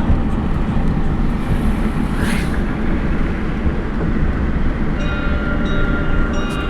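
Steady low rumble of a vehicle in motion, with a brief rising and falling hiss about two seconds in and steady high-pitched tones joining about five seconds in.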